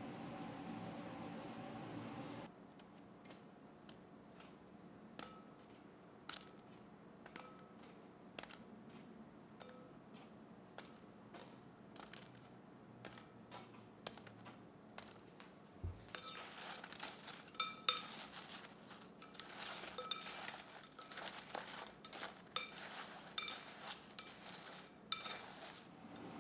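Kitchen utensils clinking on dishes: single light clinks about once a second, then a busier stretch of clinking and rustling in the second half. A steady hum plays for the first couple of seconds and then cuts off.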